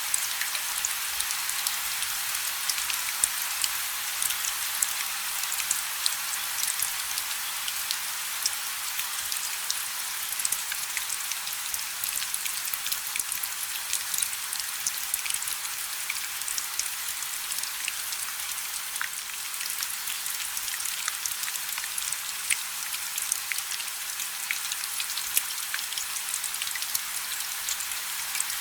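Steady rain, with many individual drops ticking sharply on a surface over an even hiss.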